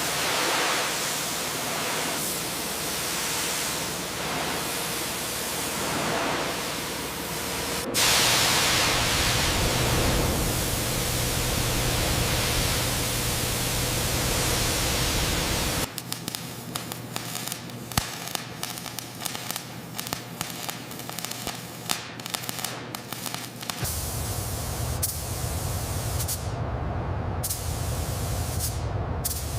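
Steady hissing noise like a spray or blast, in several abrupt sections; from about the middle it turns thinner and crackly, with many scattered clicks.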